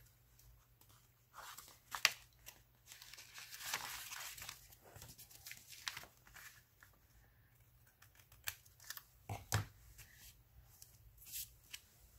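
Paper rustling and crinkling as a strip of old ledger paper is handled and folded around a paper envelope, with scissors snipping through the paper and a few sharp clicks.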